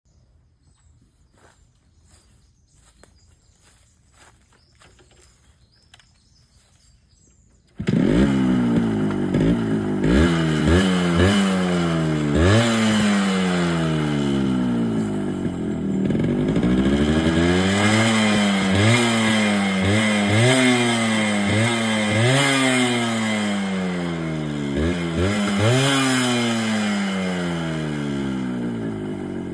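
Yamaha RX100 98cc two-stroke single-cylinder engine on its stock exhaust, starting up about eight seconds in after some faint clicks, then revved in repeated quick blips, the pitch rising and dropping again and again.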